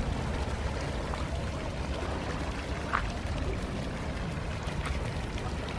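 Steady rush of water flowing in an irrigation stream.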